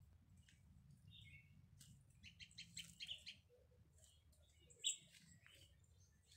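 Small birds chirping: a quick run of repeated high notes about two seconds in and a single sharper chirp near five seconds, all faint.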